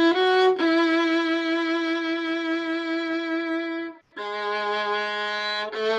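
Solo violin played slowly: a couple of short notes, then one long tied note held with vibrato for about three seconds, a brief break, and a lower held note.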